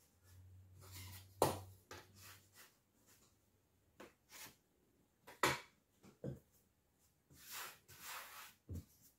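Quiet handling sounds of pastry dough being worked by hand on a floured table: two sharp knocks, about a second and a half in and about five and a half seconds in, a few softer taps, and soft brushing near the end. A low hum stops about two and a half seconds in.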